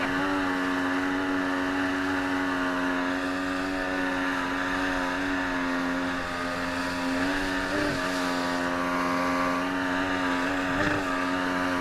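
Engine of a Vydra 650 water-jet boat running steadily under load with eight people aboard while driving through river rapids. It holds one even pitch, wavering briefly near the eight-second mark and again near the eleven-second mark.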